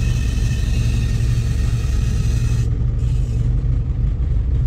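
Ostrówek K-162 backhoe loader's engine running steadily, with a high hissing whine from the hydraulic control valve under operation that cuts off sharply about two-thirds of the way through; the owner suspects air in the hydraulics as the cause of the valve noise.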